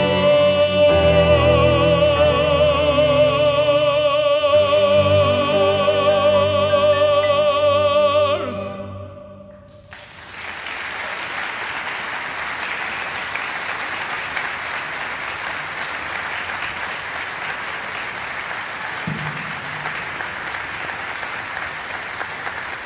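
A bass-baritone holds the song's final note with a wide vibrato over a sustained string orchestra chord, which ends about eight seconds in. After a brief hush, the audience breaks into steady applause.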